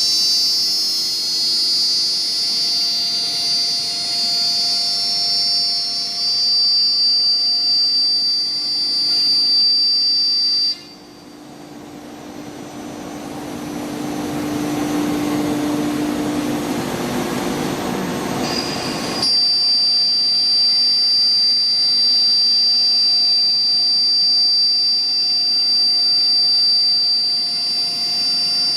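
BMG 1325 CNC router's spindle running with a steady high-pitched whine. About a third of the way in, the whine breaks off suddenly for several seconds of a lower, rougher noise that grows louder, then it cuts back in.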